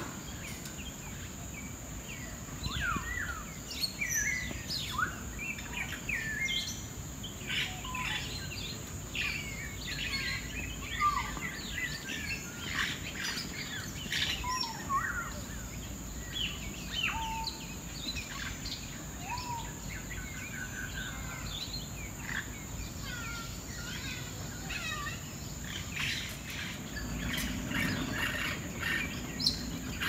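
Many birds chirping and whistling at once: short rising and falling whistled calls that overlap without a break, over a steady high-pitched tone.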